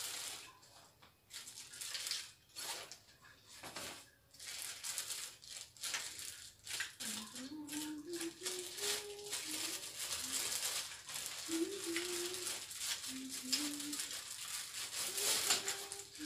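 Plastic packaging rustling and crinkling as a boxed tripod is unpacked by hand, with small clicks and rattles of the parts.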